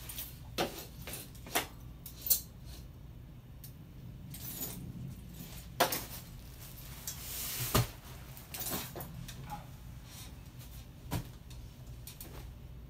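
A folding chair's frame clicking and creaking as someone gets up from it, then a padded stool scraped across the floor about seven seconds in, ending in a knock, and another knock near the end as he sits back down.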